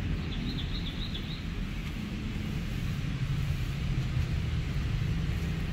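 Steady low outdoor rumble, like distant traffic or wind on the microphone, with a brief high twittering chirp about half a second in.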